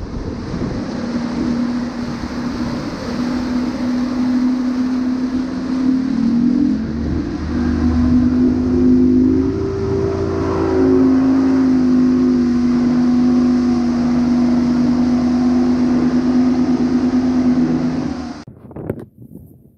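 Bass boat's outboard motor running at speed across open water, a steady drone under wind and water rush. Its pitch rises for a few seconds about ten seconds in, then settles back. The sound cuts off near the end.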